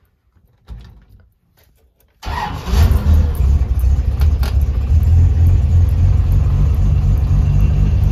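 Carburetted engine cold-starting with the choke pulled: after a short faint noise about a second in, it fires about two seconds in and keeps running steadily and loudly.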